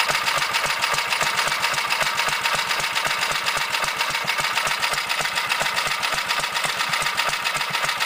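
4 hp Tecumseh snowblower engine on a minibike idling at a steady beat.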